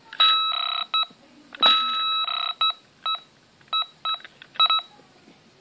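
Fox MX+ carp-fishing bite alarm sounding: two long electronic tones, the second about a second and a half in, then a string of about eight short single beeps.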